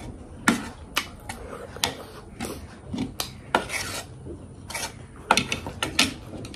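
Close-up eating sounds of a person biting and chewing crunchy chicken diamond: irregular crisp crunches and rasping chews, about two a second.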